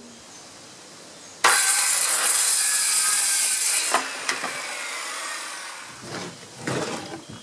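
DeWalt corded circular saw starting about a second and a half in and cutting through a strip of OSB, loud for a couple of seconds, then running on more quietly as the blade winds down after the cut. A few wooden knocks near the end as the cut-off OSB strip is handled.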